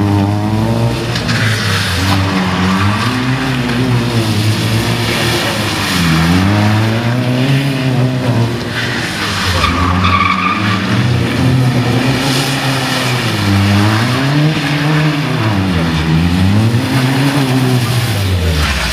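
Small hatchback's engine revving up and down over and over as it is driven hard in tight circles, with its tyres sliding and hissing on wet tarmac.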